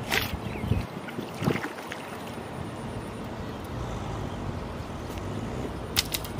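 Steady outdoor ambience of wind and water on the microphone. There is a short rush of noise at the start as the fishing line is pulled up out of the water, and two quick sharp clicks near the end as a stick knocks against a metal bowl.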